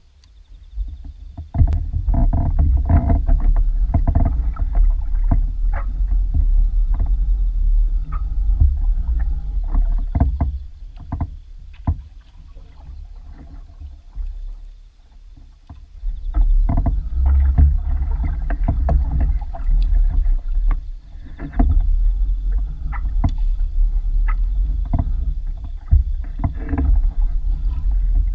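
A fishing kayak on the water: a low rumble of hull and water noise with many small knocks and clicks, going quieter for a few seconds in the middle.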